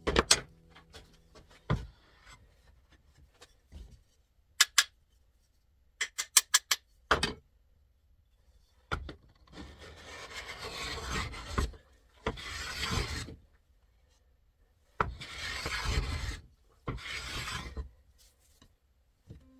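Wood being worked by hand in long scraping strokes, four of them in the second half, each lasting a second or two. Before them come scattered sharp clicks and taps, including a quick run of ticks.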